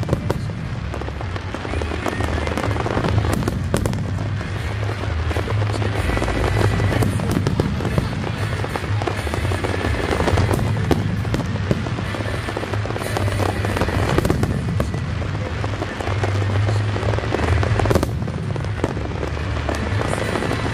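Fireworks display: a dense, continuous stream of bangs and crackling shells, with music playing underneath.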